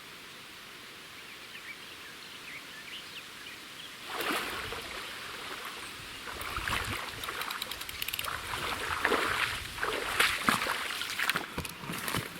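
River water flowing steadily, then, from about four seconds in, irregular splashing and sloshing close by.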